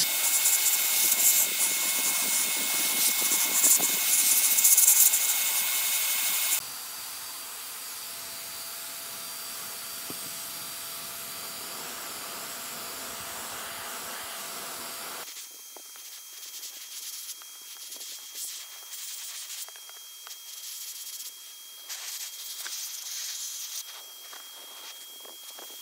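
Paint spraying onto the box: a loud, even hiss for the first six or seven seconds, stopping abruptly. After that comes a quieter steady hiss, and from about fifteen seconds in, only faint rustling and handling noises.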